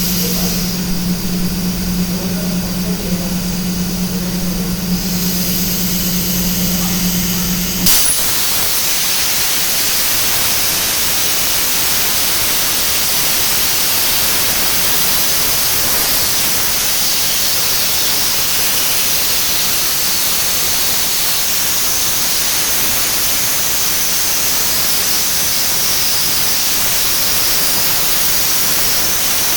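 HyCUT 300 plasma cutter on a CNC machine cutting 38 mm stainless steel plate at 245 amps. A steady hum with a hiss runs for about eight seconds, then a sharp crack as the arc fires and pierces, followed by the even hiss of the plasma arc cutting through the plate.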